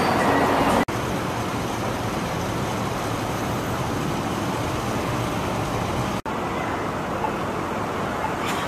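Steady city street traffic noise: vehicles passing on the road. It briefly drops out twice, where the recording is cut.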